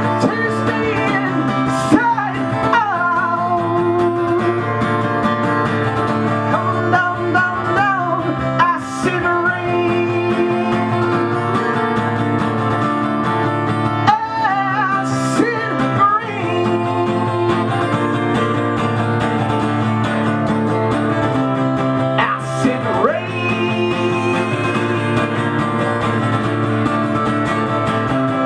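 A man singing a song into a microphone while strumming an acoustic guitar.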